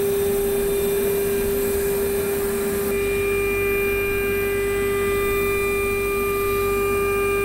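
CNC router spindle running with a steady whine while an end mill cuts an aluminium part. About three seconds in, a set of higher tones and a low rumble join the whine.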